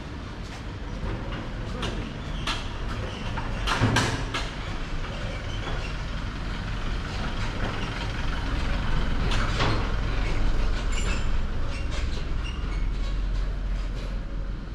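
Engine of a small refrigerated box truck running with a steady low hum, growing louder as it is passed close by and then easing off. A few sharp knocks and clatters sound over it, the loudest about 4 and 10 seconds in.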